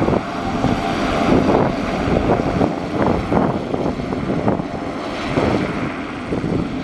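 Pilatus PC-12 single-engine turboprop running at taxi power, its turbine and propeller making a steady drone that eases slightly as the aircraft turns away.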